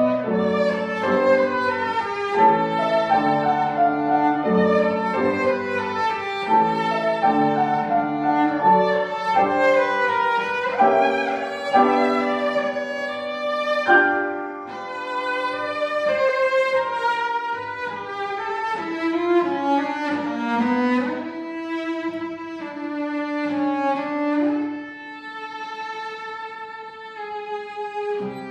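A group of cellos playing classical music together, several bowed parts at once. Quicker note changes give way to longer held notes about halfway through.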